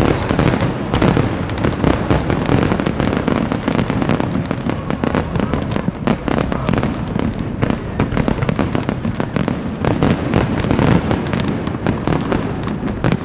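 Fireworks finale: aerial shells bursting in rapid, near-continuous succession, a dense run of bangs and crackle with no let-up.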